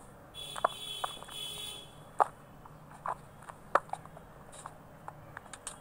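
Scattered light clicks and taps, about a dozen at irregular intervals, over a faint high-pitched whine that comes and goes in the first two seconds.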